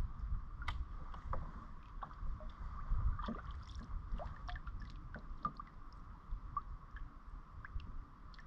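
Gear being handled in a kayak: scattered light clicks and knocks of a fishing rod, reel and paddle against the hull over a steady low rumble. It grows quieter in the second half.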